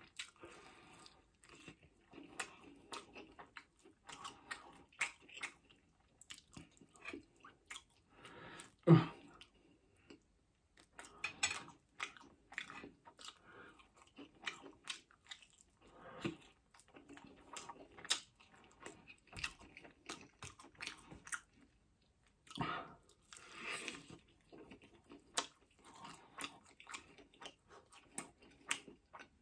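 Close-miked chewing and biting of a chicken wing held in the fingers: many short wet clicks and smacks, with one louder mouth noise about nine seconds in.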